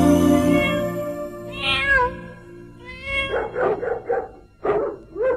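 The song's music fades out, then a dog whines with one drawn-out falling cry and follows it, from about three seconds in, with a quick run of short yelps.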